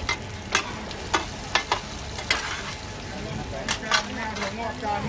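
Mussel pancakes (hoi tod) sizzling in oil on a large flat wok, with metal spatulas clanking and scraping against the pan about seven times.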